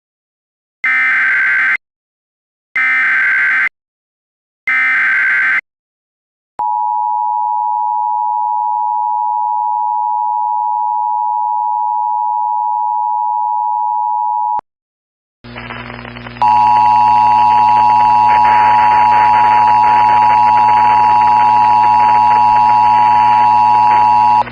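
Emergency Alert System mock: three one-second screeching bursts of SAME header data, then the steady two-tone EAS attention signal for about eight seconds. After a brief gap, a louder, noisier stretch begins in which the two-tone attention signal sounds again over hiss and hum.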